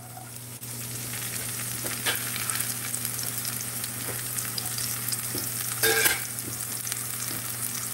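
Chopped green onions sizzling in hot shortening in a cast-iron skillet: a steady frying hiss that starts about half a second in, with a brief knock about six seconds in.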